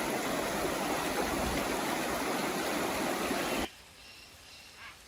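Rushing river water, a loud steady hiss, cutting off abruptly about three and a half seconds in to a quiet forest background with a few faint high calls.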